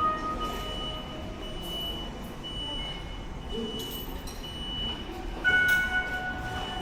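Electronic beep tones at several different pitches, sounding on and off over a steady low rumble of background noise. There is a louder swell about five and a half seconds in.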